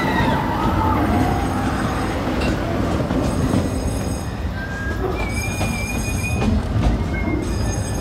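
Cedar Point and Lake Erie Railroad narrow-gauge passenger train running, heard from its open-sided coach: a steady rumble of wheels on the rails. Thin, high wheel squeals come in from about halfway through.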